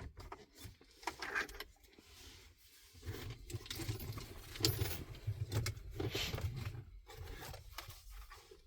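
Metal radio-mounting cage and wiring being handled in a van dashboard: irregular light metallic clicks, rattles and scrapes.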